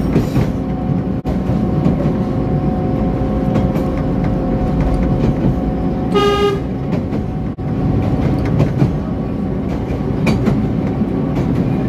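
Narrow-gauge locomotive running steadily, heard from its cab, with one short horn blast of about half a second, about six seconds in, a warning for a track crossing ahead.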